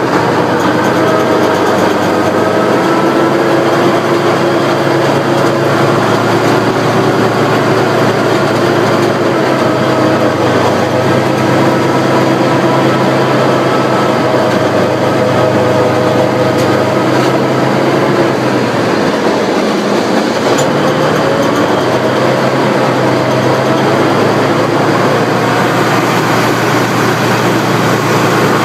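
Tank driving, its engine and tracks running loud and steady, heard from on top of the hull, with the clatter of the tracks running under the engine note.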